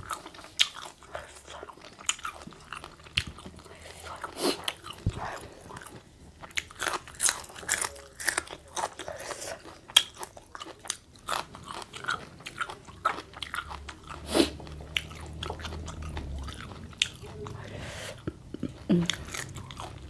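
A person chewing and crunching food close to the microphone, with many sharp, crisp bites throughout and one sharp crunch about halfway through. The food is spicy seafood instant-noodle salad (yum mama) eaten with raw vegetables.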